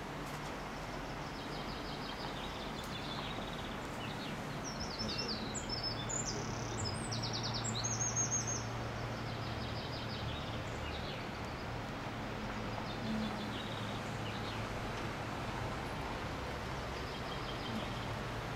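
Small birds chirping and calling, busiest about five to eight seconds in, over a steady outdoor rush of noise with a low hum beneath it.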